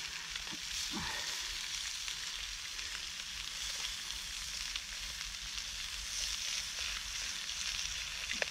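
Sausages sizzling steadily in a frying pan over a wood-burning box stove, with a few light clicks of a utensil against the pan, one near the end.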